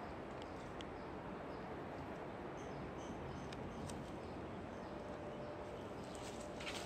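Quiet outdoor woodland ambience: a steady faint hiss with a few faint, scattered high bird chirps.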